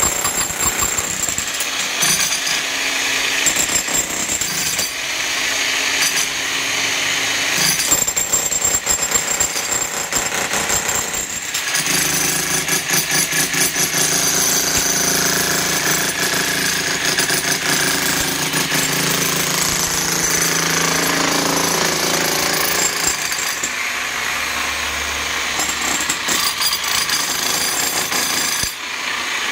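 Handheld demolition hammer breaking up reinforced concrete, a continuous rapid hammering.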